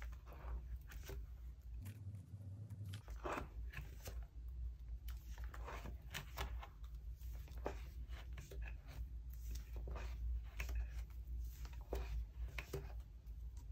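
Plastic pocket sleeves of a ring binder crinkling and rustling as pages are handled and turned, in irregular short crackles over a steady low hum.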